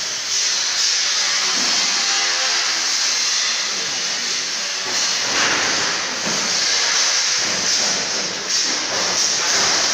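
Steady loud hissing noise, swelling briefly twice, with faint steady tones behind it early on.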